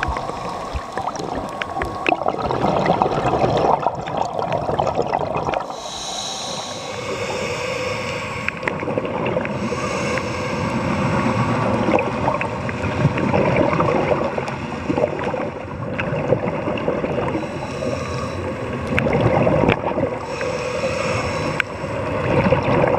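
Underwater sound of a scuba diver's regulator breathing and exhaust bubbles, swelling and fading in breath-long cycles, with scattered sharp clicks.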